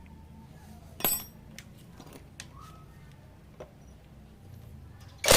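Metal tools and parts being handled in a workshop: a sharp metallic clink about a second in and a few light knocks, then a power tool starts up loudly right at the end.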